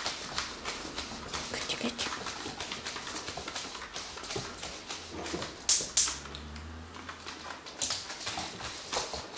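A Shetland sheepdog taking treats from a hand and shifting about on a wooden floor: a run of small quick clicks and snuffling sounds, with two sharper, louder noisy bursts about halfway through.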